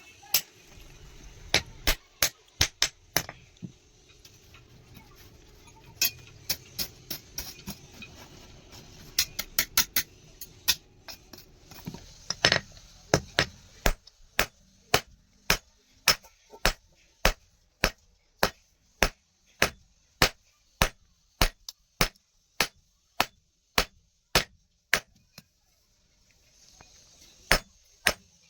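Hammer blows on steel against an anvil, forging a small steel rod: sharp, ringing metal strikes, irregular at first, then a steady run of about two blows a second, with a short pause near the end.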